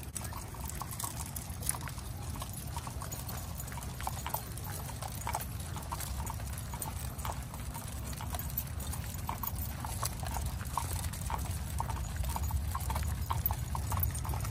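A pack of leashed dogs walking together on an asphalt street: a fast, irregular patter of light clicks from the moving pack, over a steady low rumble.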